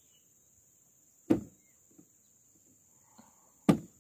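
Two sharp knocks about two and a half seconds apart, over a steady high insect drone.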